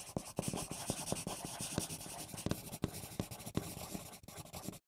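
Pen scratching across paper in quick handwriting strokes, with small taps between strokes; it cuts off suddenly.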